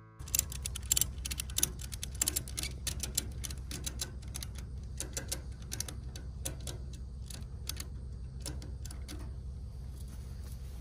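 Ratchet strap being cranked tight over a load of round hay bales: a run of quick, irregular clicks that thins out toward the end, over a steady low hum.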